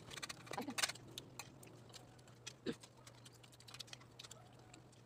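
Close-up mouth sounds of eating: chewing with the mouth open and lip smacks, a string of irregular soft clicks and smacks, over a faint steady hum.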